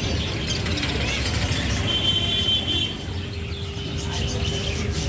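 Small birds chirping over a steady low rumble, with one clearer high chirp about two seconds in.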